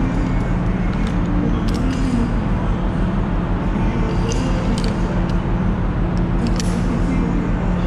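Steady low mechanical hum with constant low tones, with several light metallic clicks scattered through it as rope-access hardware (carabiners, descender) is handled on the rope.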